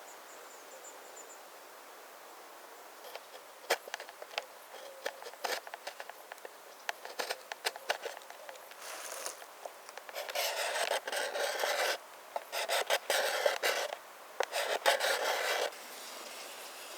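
A knife working a wooden board: scattered small cuts and clicks, then from about ten seconds in a few long scraping strokes of a second or more each.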